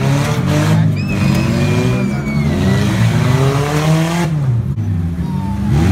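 Demolition derby cars' engines revving up and down, more than one at a time, with a thin high squeal sliding downward for about a second and a half, starting about a second in.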